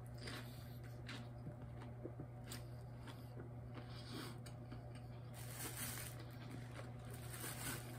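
Faint chewing and mouth sounds of a Maxwell Street Polish sausage sandwich being eaten, with small clicks and soft rustling as it is handled, louder for a moment about five and a half seconds in. A steady low hum runs underneath.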